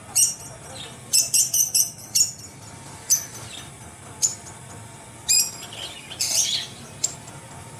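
Rubber squeaky toy horse squeezed by hand again and again, giving short, high squeaks in uneven bursts. There is a quick run of four or five squeaks about a second in.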